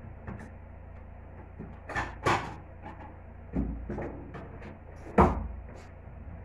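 A few scattered knocks and clunks of things being handled in a kitchen, like cupboard doors or utensils, the loudest and deepest about five seconds in.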